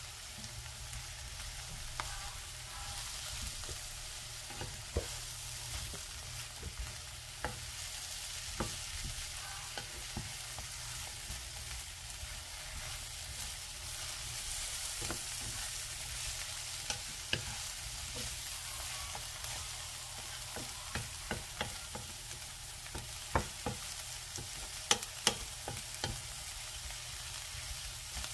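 Sliced shiitake mushrooms, onion and carrot sizzling steadily in a frying pan while being stir-fried with a wooden spatula, which clicks and knocks against the pan now and then, with a few sharper knocks near the end.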